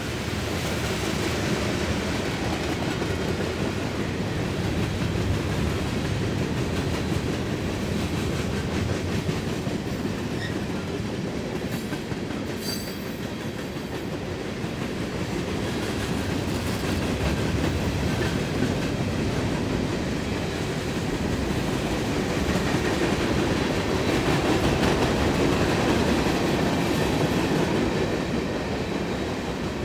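Heavy freight train's cars rolling past close by: a steady rumble of steel wheels on the rails that swells about three-quarters of the way through. A brief high squeal comes about twelve seconds in.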